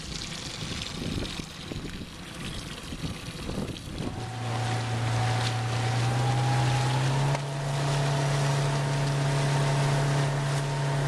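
A small boat's outboard motor comes up to a steady drone about four seconds in, after a few seconds of wind and splashing water. It steps up in pitch about seven seconds in as the boat speeds up, with water rushing past the hull.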